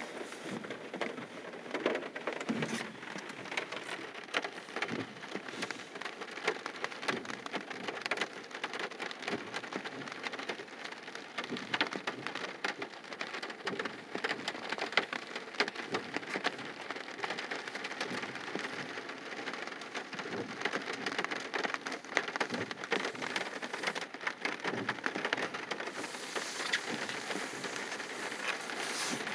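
Rain falling on a car's roof and windshield, a dense, steady stream of raindrop ticks, with a brighter hiss joining in near the end.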